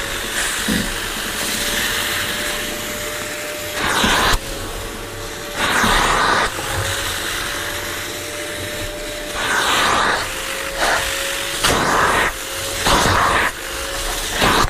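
Kärcher Puzzi 8/1C spray extractor working a cloth car seat: its suction motor runs with a steady whine, and several louder rushes of noise come as the upholstery nozzle is drawn over the fabric, pulling up dirty water.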